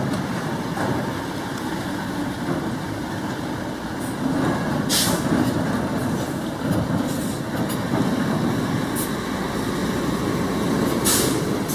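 Several loaded dump trucks driving slowly over a rough, potholed dirt road: diesel engines running low with the rumble of the trucks rolling. Two short air-brake hisses come about five seconds in and again near the end.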